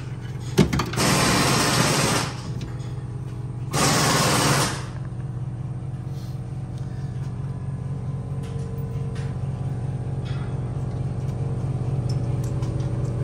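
A cordless power driver run in two short bursts of about a second each, driving in the bolts that hold a door speaker, with a sharp click just before the first burst, over a steady low hum.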